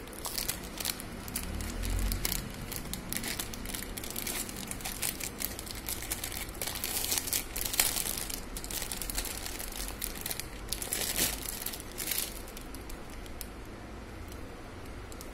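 Plastic packaging crinkling and rustling as it is unwrapped by hand, with dense irregular crackles that die down near the end.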